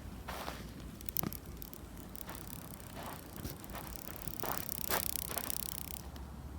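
Footsteps walking over forest ground: irregular crunching steps, with a sharper snap about a second in.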